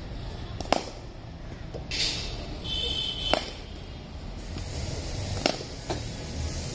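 Cricket bat striking the ball: three sharp knocks about two to three seconds apart. A fainter knock follows the last one half a second later.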